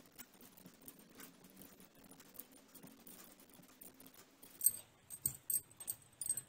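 Knitting needles and wool worked by hand while a row is purled: faint ticks and rustling, then a run of sharper clicks of the needles in the last two seconds.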